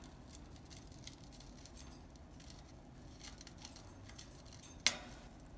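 Faint scattered clicks and scratches of a green-cheeked conure climbing about the metal cage bars and toys, with one sharper click near the end.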